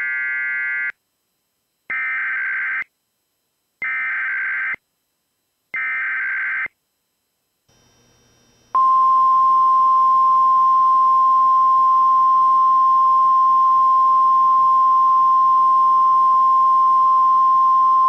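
Emergency Alert System SAME header: four one-second bursts of warbling digital data tones about two seconds apart. About nine seconds in, after a faint hiss, the steady single-pitch 1050 Hz weather-radio alert tone sounds and holds to the end.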